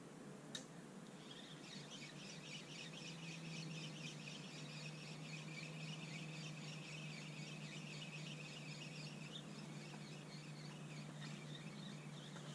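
A songbird sings a long, fast chattering song of rapid high notes that runs about ten seconds, heard faintly. There is a single sharp click about half a second in.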